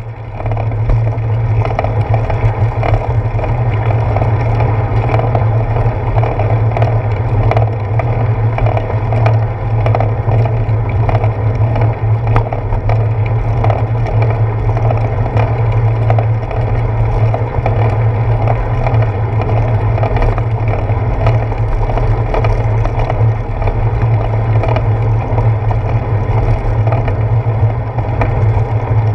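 Bicycle rolling along a wet paved path, heard through a handlebar-mounted camera: a steady low rumble of road vibration with constant small clicks and rattles from the handlebar mount.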